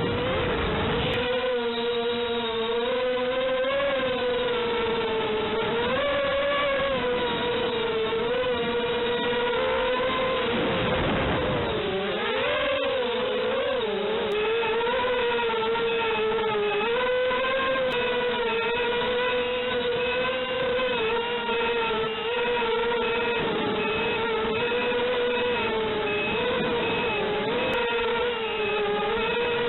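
Whine of a remote-controlled FPV craft's small electric motors, spinning up at the start and then holding a steady pitch that wavers up and down with the throttle. It dips and surges about 11 to 13 seconds in.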